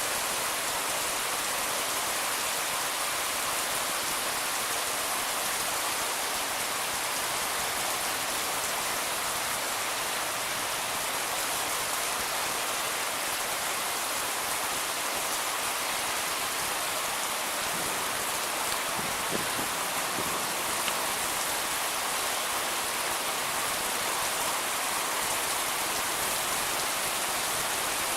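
Heavy rain pouring down, a steady, even hiss of rain on hard surfaces.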